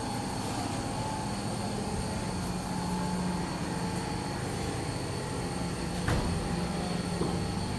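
Machine shop noise: a steady mechanical hum of running machinery with several held tones, and one sharp knock about six seconds in.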